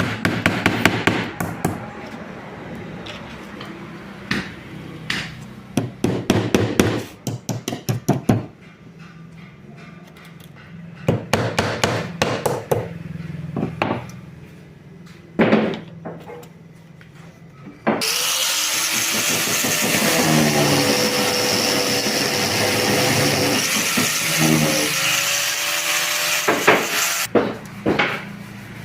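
Quick runs of hammer taps on wood, with a few scattered knocks later. About two-thirds of the way through, an angle grinder is switched on and runs for about nine seconds, its pitch dipping and recovering as it is loaded, then stops abruptly.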